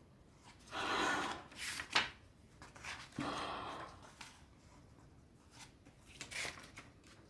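Pages of a hardcover book being turned and the book handled: two short papery rustles with a sharp tap between them, then a few light ticks.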